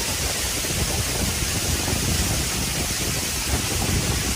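Waterfall roaring close by, a steady loud rush of falling water and spray with a deep rumble underneath.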